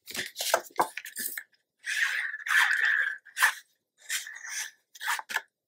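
Patterned paper and cardstock being handled on a cutting mat: a string of short rustles and scrapes, with a longer rub about two seconds in. Near the end, a fine-tip glue bottle is run over the back of a paper piece.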